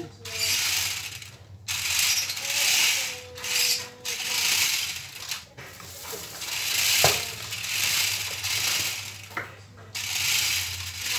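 Toy remote-control off-road car's small electric motors and plastic gearboxes whirring as it drives on omni-roller wheels across a tiled floor. The whirring comes in a string of bursts about a second long as the controls are pressed and released.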